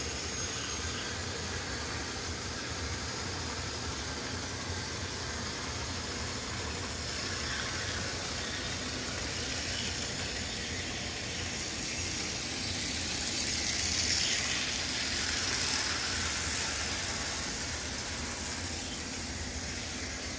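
Bachmann HO scale diesel locomotive pulling its freight cars around a track loop: a steady motor whir and wheel rumble on the rails, a little louder about two-thirds of the way through.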